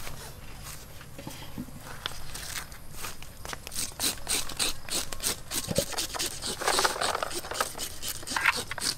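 A knife scraping the scales off a whole fish on a chopping board: a run of quick, raspy strokes, several a second, starting a few seconds in and getting louder toward the end.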